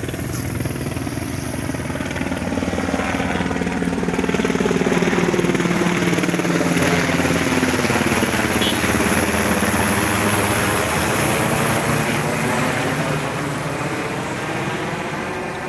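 Two Sikorsky S-70i Black Hawk helicopters flying past, with a steady rotor beat and engine noise. The sound builds to its loudest around the middle and then fades as they move away.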